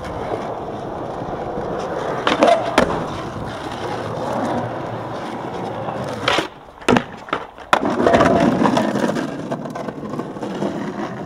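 Skateboard wheels rolling and the board riding along a concrete ledge, a steady rushing roll. Sharp clacks of the board striking concrete come about two to three seconds in, and a cluster more between six and eight seconds in.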